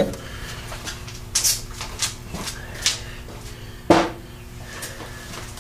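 A steel three-jaw chuck being handled off the lathe's freshly turned backing plate after a test fit. It makes a series of metal clinks and scrapes, with a sharper knock about four seconds in, over a faint steady hum.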